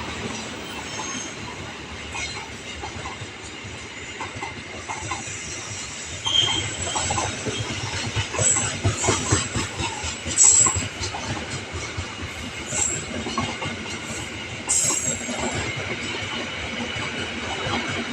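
Train rolling past: wheels clattering over rail joints in a continuous run of clacks, with short high metallic squeals from the wheels a few times in the middle.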